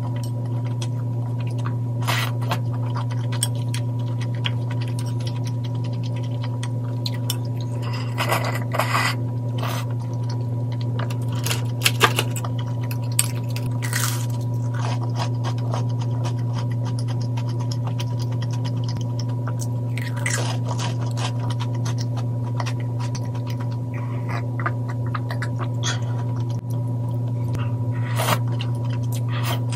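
Close-up eating sounds: noodles being slurped and chewed, chopsticks clicking against a ceramic bowl, and a crunchy bite of fried shrimp toast, over a steady low hum.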